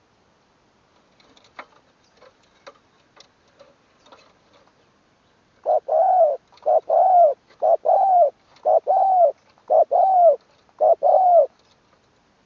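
Spotted dove cooing: a series of six loud phrases, each a short note followed by a longer arching coo, after a few faint clicks.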